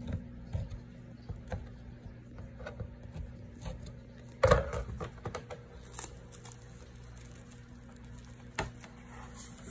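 Fingers picking and scratching at packing tape on a cardboard print mount: scattered small clicks and scrapes, with a louder knock about four and a half seconds in and a sharp click near the end.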